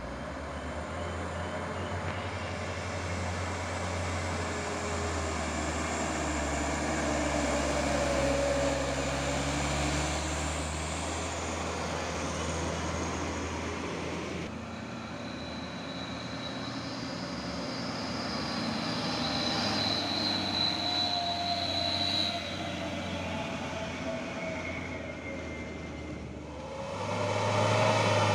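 Diesel dump truck engines labouring up a steep climb in low gear as the trucks pass close, with a thin high whine midway. A second truck's engine grows louder near the end.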